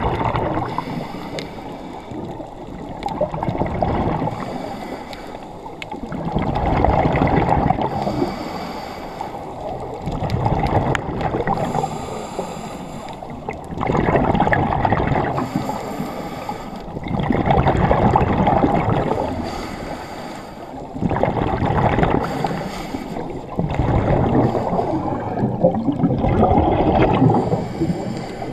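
Scuba diver breathing through a regulator underwater. Each exhalation sends a burst of bubbles out of the regulator, gurgling loudly, and these come about every three to four seconds with quieter stretches between.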